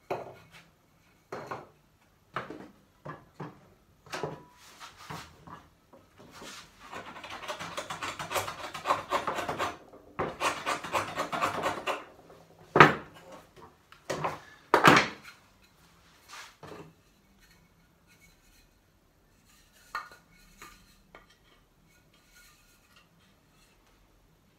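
Shoulder plane shaving the cheeks of a wooden tenon: a run of short strokes, then several seconds of steady rasping, then two louder strokes. Near the end, only light knocks from handling the wooden pieces.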